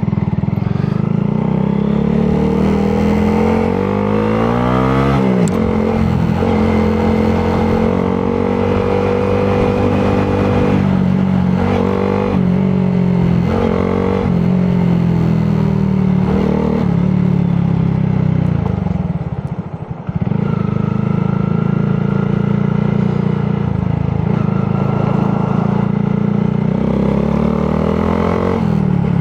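2022 Honda Grom's single-cylinder engine under way, climbing in pitch as it revs up about four seconds in, then running steadily. It drops off briefly about two-thirds of the way through and climbs again near the end.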